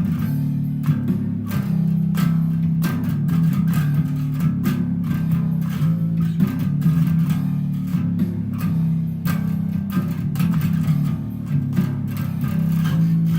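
Electric bass guitar playing a riff, a steady run of plucked notes changing pitch, with a sharp attack on each note.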